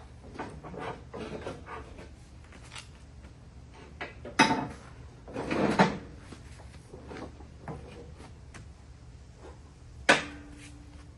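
Tools and metal parts being handled during mower spindle work: scattered small clicks, a sharp clank about four seconds in, a rattling scrape around six seconds, and a last sharp clank near the end that rings briefly.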